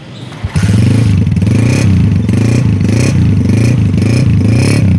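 A 2000-model Honda CG125 Power Plus motorcycle's single-cylinder four-stroke engine kick-started from cold, catching on the first kick about half a second in. It is then revved in quick repeated throttle blips, the pitch rising and falling about every three-quarters of a second.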